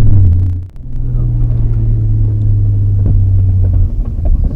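Nissan Skyline GT-R (BNR32) running on the road: a steady low drone of engine and road noise, broken by a brief dip about two-thirds of a second in.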